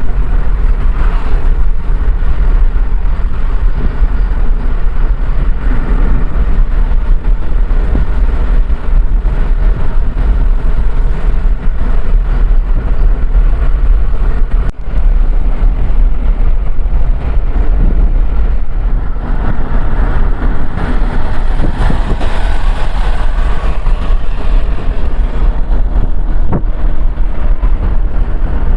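A vehicle on the move: a loud, steady, low rumble of engine and road noise.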